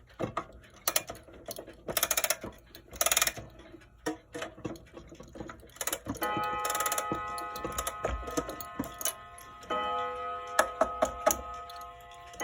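Mechanical wall clock: clicks and short rasping bursts, then from about six seconds in its chimes ring out, several tones held together and struck again a few times near the end.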